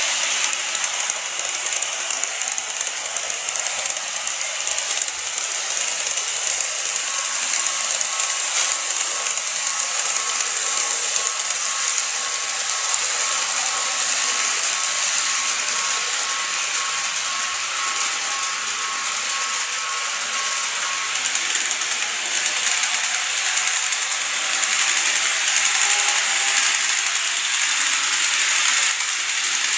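Model train of a Seibu 9000 series running around a curved elevated track: a steady, high-pitched whirring hiss of its motor and wheels on the rails, with a faint thin hum through the middle. It grows a little louder near the end.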